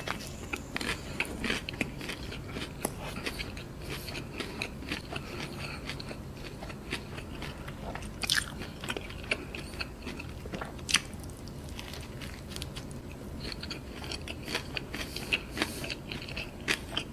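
Close-up chewing of a KFC Zinger fried-chicken burger with curry sauce: a bite, then wet mouth clicks and small crackles of chewing.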